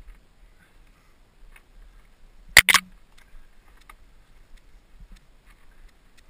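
Faint scattered ticks and clicks, with two sharp knocks close together about two and a half seconds in.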